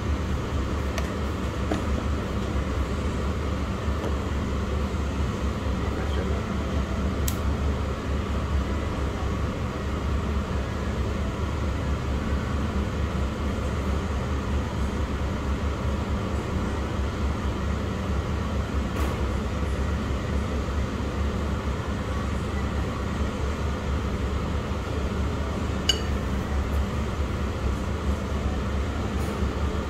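Steady low hum and rumble of indoor background noise, with a few faint clicks or clinks.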